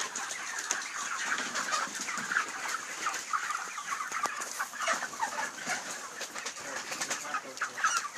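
Chickens clucking and calling continuously, many short overlapping calls from a flock. The flock is shown for the snore-like rattling breathing ('ngorok') of chronic respiratory disease (CRD).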